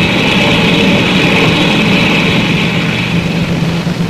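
Spaceship engine sound effect: a steady drone with a hiss over it.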